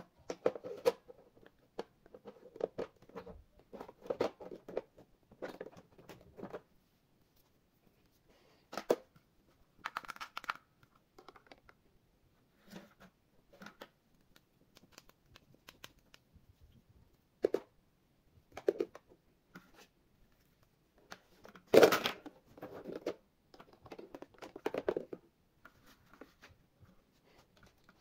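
Irregular handling noises: short bouts of crinkling and scraping separated by quiet pauses, with one louder clatter about two-thirds of the way through.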